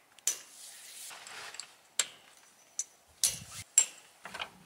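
A series of sharp clicks and knocks, five or so at uneven intervals, with a rustling, scraping noise between the first two.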